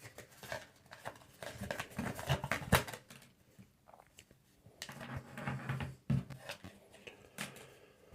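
Hands handling product packaging: irregular clicks, taps and rustling, in two busier spells about a second and a half in and again around five seconds in.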